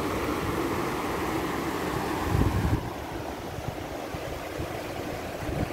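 Shallow river rushing over rocks and gravel riffles as a steady wash. Wind buffets the microphone in uneven gusts, loudest a little past two seconds in. The hiss of the water drops away slightly just before three seconds in.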